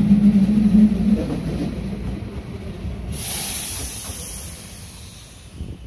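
Chikuho Electric Railway articulated tram 5001 passing close and running away along the track. Its low hum and wheel noise fade steadily. A high, even hiss comes in suddenly about halfway through.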